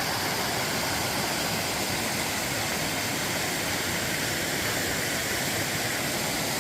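Waterfall running steadily, an even, unbroken rush of falling water.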